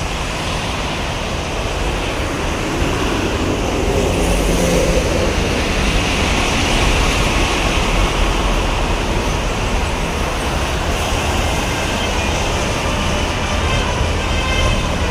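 Steady highway traffic noise from heavy trucks and buses passing on a toll road: a continuous rush of tyre and engine noise with a low rumble, louder from about four seconds in as a vehicle passes close.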